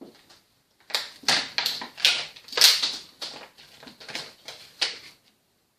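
Toy packaging and plastic pieces being handled as a playset is unpacked from its box: a quick, irregular run of clicks, crinkles and rustles.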